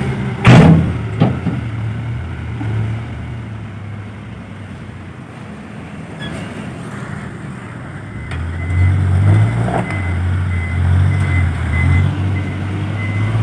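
Dump truck's diesel engine running, with a loud bang about half a second in and a smaller one just after. From about eight seconds in the engine gets louder and the reverse alarm beeps steadily as the truck backs up.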